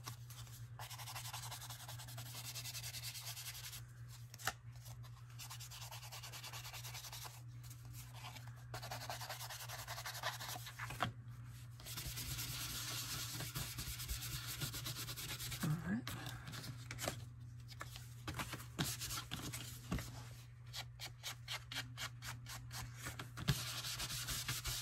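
Foam ink blending tool rubbing ink onto paper laid on cardboard: long runs of scratchy swishing broken by short pauses, with quicker short strokes near the start and again near the end.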